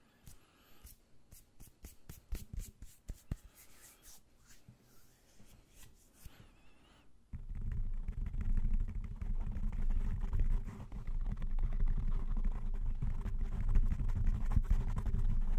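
Hands rubbing and flicking close to a microphone, faint quick rustles and clicks. About seven seconds in, the hands start rubbing directly on the microphone's foam cover: a much louder, low, muffled scratching.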